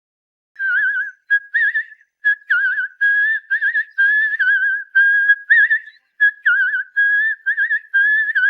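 Cartoon sound effect of someone whistling a carefree tune: many short, warbling notes, starting about half a second in and held within a narrow pitch range.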